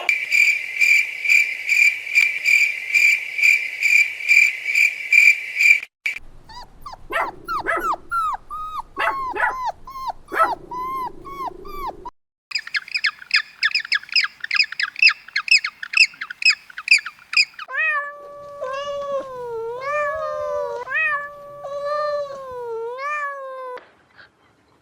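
A run of different animal calls edited one after another: a fast, even, high chirping for about six seconds, then short squeaky calls falling in pitch, then more rapid high chirping, and in the last part long wavering calls that rise and fall.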